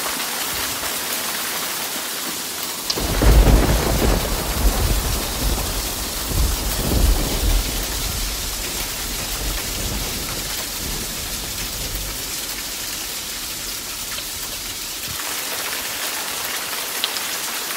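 Hail and heavy rain pelting the ground in a steady hiss. About three seconds in, thunder breaks in suddenly and rumbles low for about ten seconds, swelling a few times before fading away.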